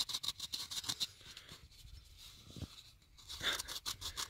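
Gloved hands handling a white plastic turbine nose cone, with quick scratchy rubbing at about nine strokes a second. It pauses about a second and a half in and starts again about three seconds in.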